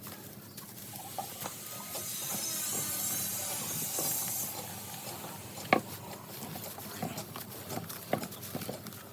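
Dry coconut husk fibre and straw being handled and worked by hand: scattered small rustles and crackles, with a soft hiss swelling for a couple of seconds and one sharp click a little past the middle.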